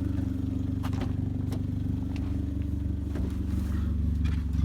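Hyundai Genesis Coupe's turbocharged four-cylinder engine idling steadily, with a few light clicks and knocks over it.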